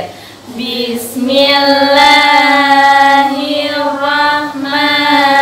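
Women's voices chanting a prayer together in unison, slow and melodic with long held notes, beginning about a second in.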